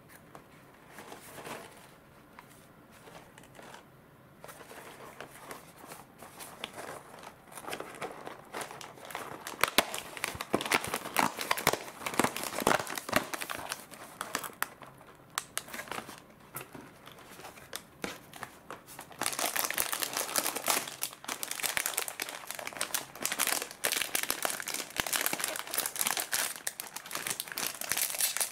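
Cardboard snack box being opened and handled, then the foil inner pouch of Ottotto snacks crinkling as it is pulled out and torn open. The crinkling grows louder and is loudest in the last third.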